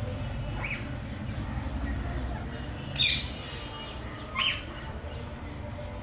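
Rose-ringed parakeets squawking: two loud short calls about a second and a half apart, each sweeping down in pitch, with a fainter call shortly before them.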